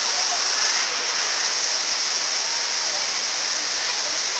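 Steady rushing hiss of a heavy tropical downpour and flash floodwater, with no single event standing out.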